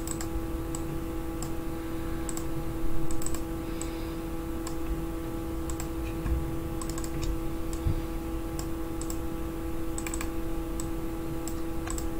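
Scattered clicks of a computer mouse, some in quick pairs like double-clicks, over a steady hum.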